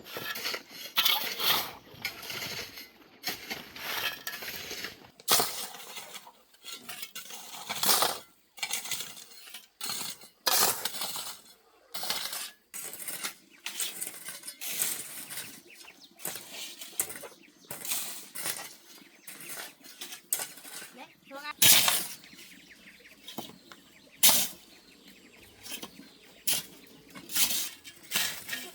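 Irregular knocks and clinks of hard objects being handled, many separate strikes of uneven loudness, with the loudest knock a little over two-thirds of the way through.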